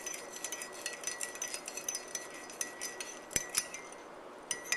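Metal spoon stirring coffee in a ceramic mug, tapping and clinking against the sides with a light ringing, as crushed peppermint candies are stirred to melt. One louder knock about three and a half seconds in.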